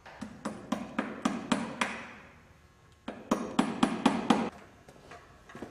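Hammer tapping, fixing a paper target to a wooden board: two runs of quick, light strikes, about four a second, with a short pause between them.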